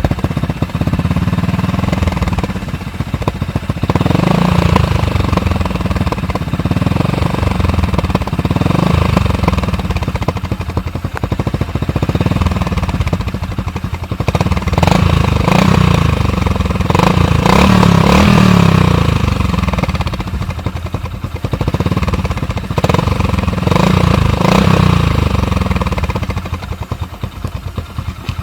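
Hero Glamour motorcycle's single-cylinder engine revved up and let fall about a dozen times, heard through an exhaust with a used coke tin fitted to it to make the note louder and sportier.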